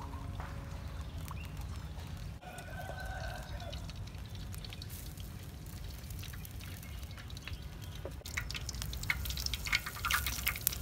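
Cooking oil poured from a clay jug into a wok, then hot oil crackling and sizzling over the last couple of seconds as spring rolls are lowered into it with tongs to deep-fry.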